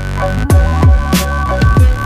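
Electronic music with a heavy beat: deep kick drums that drop in pitch, sharp snare hits and sustained bass notes under steady synth tones.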